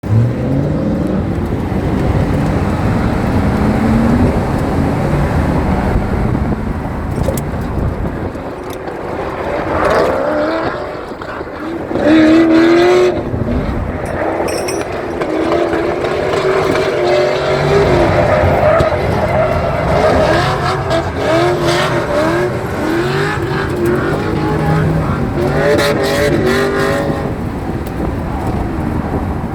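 A drift car's engine revving hard and dropping back again and again, its pitch rising and falling many times, over a steady rush of tyre and road noise. The loudest burst of revs comes a little under halfway through.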